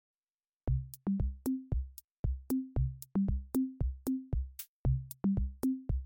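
Intro music: a drum-machine beat with short bass notes stepping between a few pitches, starting after a brief silence about two-thirds of a second in.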